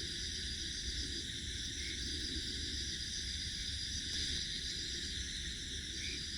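Steady chorus of night insects, a constant high-pitched buzzing with no breaks, over a low rumbling noise.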